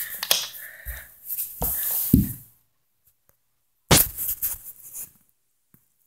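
Handling noise from a phone being turned around in the hand: fingers rubbing over the microphone and a few dull knocks, in two spells in the first half and about four seconds in, with total silence between.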